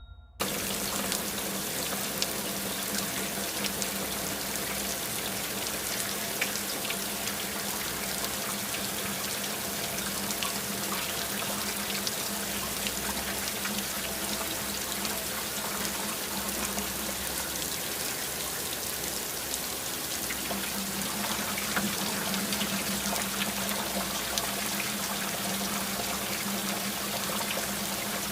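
Heavy rain falling steadily: a dense, even hiss of countless drops, with fine individual drop ticks and a steady low hum underneath.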